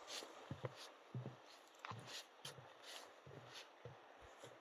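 Faint footsteps of a hiker walking on a wooden plank boardwalk, a soft thud with a light click at a steady walking pace.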